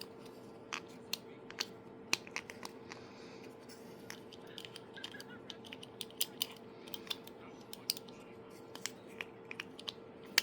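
Small 3D-printed plastic clicker clicking and being handled: sharp, irregular clicks, some much louder than others, over a steady faint hum.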